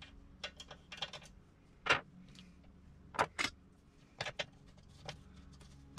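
Scattered small clicks and knocks of a screwdriver and metal parts being handled at a belt 3D printer's roller mount, over a faint steady hum. The loudest knock comes about two seconds in and a pair follows just after three seconds.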